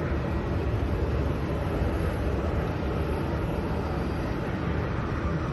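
Steady low rumbling noise with a hiss above it, flickering at the bottom, as wind buffets a phone's microphone outdoors.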